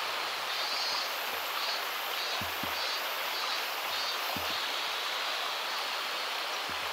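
Steady rush of running water, like a stream or small waterfall. A faint high chirping pulses about two to three times a second over it, and there are a few soft low thumps around the middle.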